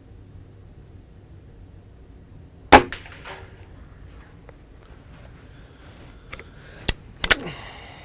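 A Walther LGU .22 spring-piston air rifle fires once, about three seconds in, with a single sharp report. A few sharp clicks follow near the end as the rifle is handled.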